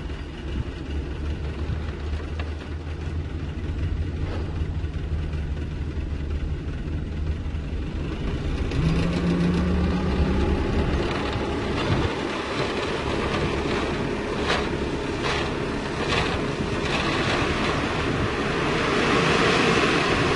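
Light diesel dump truck running as its tipper body is raised. The engine note strengthens about nine seconds in, a few knocks follow, and near the end gravel rushes and slides out over the tailgate.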